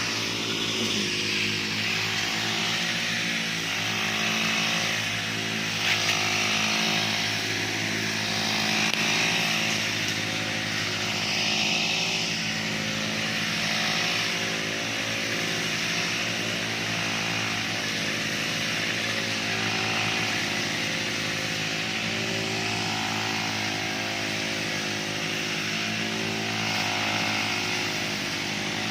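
Petrol brush cutter engine running at high speed while cutting grass, its level swelling and easing every few seconds as the cutter sweeps through the grass.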